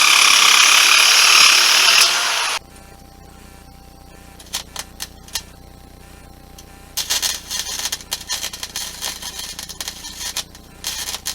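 Power sheet-metal nibbler cutting thin steel sheet, running loud and steady for about the first two and a half seconds, then stopping. Sharp clicks and clatter of the sheet metal follow, and the nibbler runs again with a fluttering chatter from about seven seconds in.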